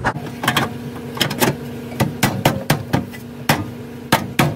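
Replacement shock tower panel being worked by hand into the wheel opening, knocking irregularly against the body metal, a few clunks a second. A steady low hum runs underneath.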